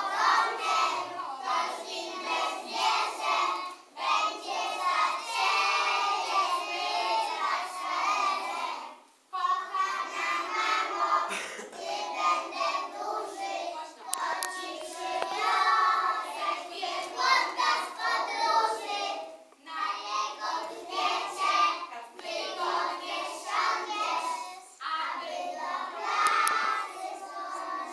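A group of young children singing together in phrases, with short breaks between lines.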